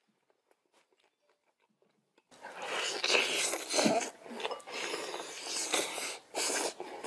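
Close-miked, wet chewing and lip-smacking of meat pulled off the bone, starting about two seconds in after near silence, with a short hum of the voice near the middle.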